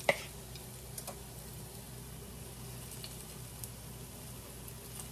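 Banana fritter batter frying in shallow cooking oil in a pan, a faint steady sizzle. A sharp clink of a spoon against the mixing bowl comes right at the start, and a few faint taps follow.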